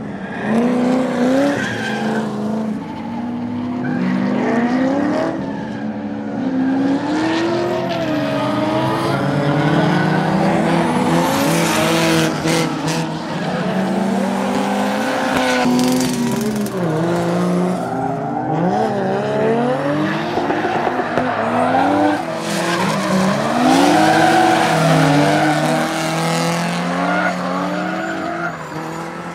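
Drift cars sliding with tyres squealing, their engines revving up and falling back again and again through the slides.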